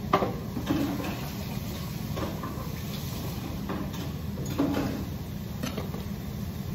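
A steady low hum of room machinery with a handful of short knocks and clatters from kitchen work, the sharpest right at the start and the others spread about a second apart.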